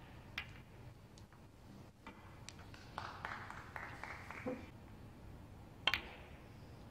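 Snooker balls clicking: a cue striking the cue ball and balls knocking together, with a sharp, louder cue-ball strike near the end.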